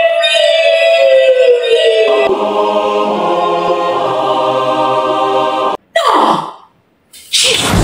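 Choir-like singing in long held notes, one line sliding slowly down in pitch, cutting off suddenly about six seconds in. A short cry falling in pitch follows, then a loud noisy burst near the end.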